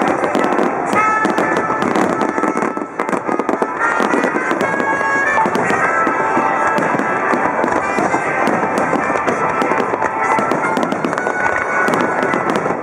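Fireworks finale barrage: many aerial shells bursting in rapid succession, a dense continuous stream of bangs and crackle.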